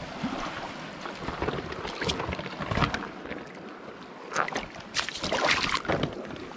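Shallow seawater sloshing and splashing among rocks in a tide pool, with irregular splashes that are busiest in the last couple of seconds, over a steady rush of wind on the microphone.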